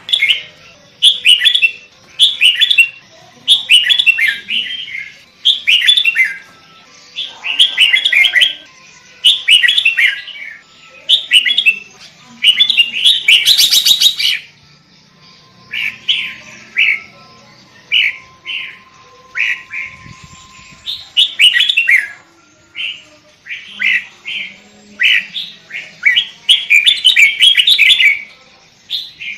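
Sooty-headed bulbul (kutilang) singing: short loud phrases of gliding notes, repeated about once a second, with one harsh buzzy call around the middle.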